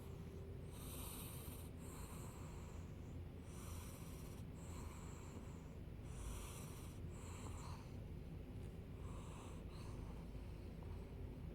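Domestic cat snoring: a raspy noise on each breath in and out, with a full breath about every two and a half seconds.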